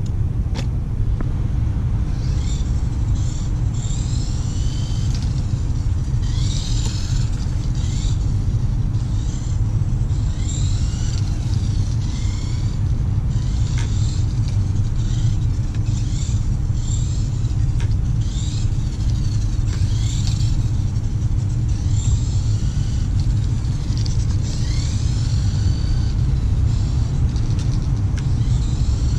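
Tamiya Dual Rider RC trike's small electric motor and gears whining, rising and falling in pitch again and again as it speeds up and slows around the course, heard over a steady low rumble.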